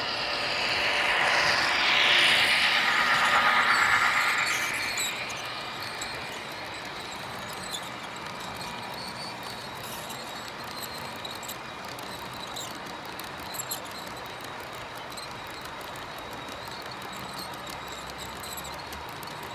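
Model diesel locomotive passing close by, loudest in the first five seconds, then the model wagons of its train rolling past on the track with a steady rumble and light clicking from the wheels.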